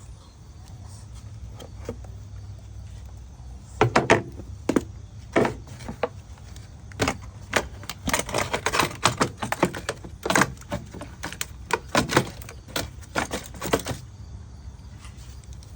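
Hand tools and metal parts being handled: irregular clinks, clicks and a few sharper knocks, starting about four seconds in and stopping shortly before the end, over a low steady hum.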